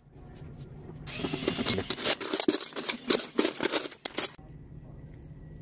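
Loose bolts and washers clinking and rattling as a hand rummages through a drawer of hardware: a dense run of small metal clicks lasting about three seconds, then it goes quiet.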